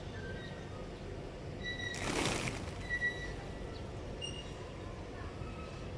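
A flock of pigeons taking off: a brief flutter of wings about two seconds in, over a steady low background rumble, with scattered short, high bird chirps.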